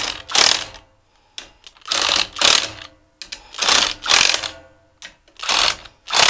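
Cordless impact driver hammering bolts tight in a string of short bursts with brief pauses between, each trigger pull running half a second to a second.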